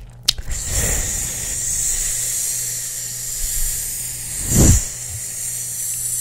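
A steady hiss close to an ASMR microphone, with a brief low rush of air about four and a half seconds in.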